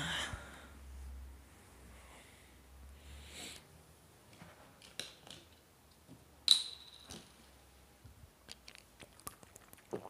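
Handling noise: rustling, then scattered small clicks and knocks, with one sharp click about six and a half seconds in.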